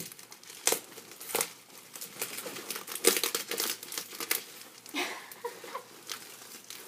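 Packaging crinkling and rustling as merchandise is unwrapped by hand, in irregular crackles with a few louder bursts and some tearing.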